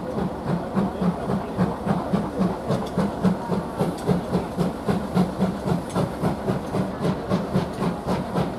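Steam locomotive working a train of coaches, its exhaust beating in a steady, even rhythm of about two to three chuffs a second, with a hiss of steam and rattle from the wheels on the rails.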